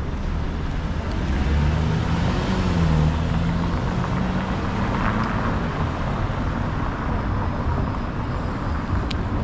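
City street traffic at an intersection: a car's engine passes close by, loudest about two seconds in, over a steady rumble of traffic. A short click comes near the end.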